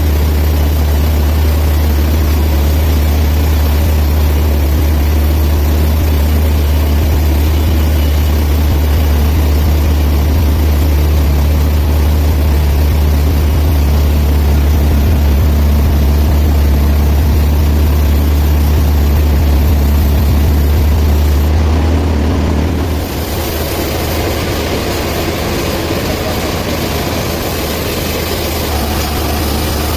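Band sawmill running steadily with a strong low hum and a noisy spread above it. About 22 seconds in the sound changes and drops slightly in level.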